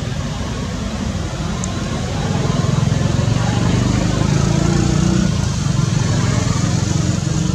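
Steady low rumble, louder from about two seconds in.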